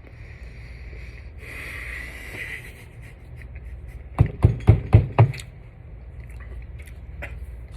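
Chewing on a hot-sauce-coated chicken wing, with a breathy noise about a second and a half in and a quick run of about six dull thumps around four to five seconds in.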